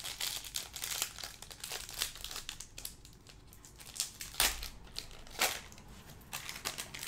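Foil wrapper of a Panini Court Kings basketball card pack being torn open and crinkled by gloved hands: a run of irregular crackling, with sharper tearing strokes about four and a half and five and a half seconds in.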